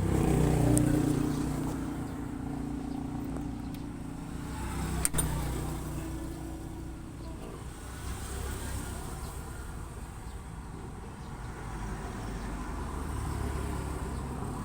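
A motor vehicle engine running nearby, its sound swelling and fading, with a single sharp click about five seconds in.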